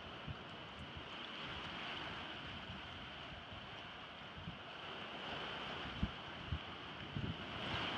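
Small waves washing against a rocky shore as a steady rush, with a few short gusts of wind buffeting the microphone near the end.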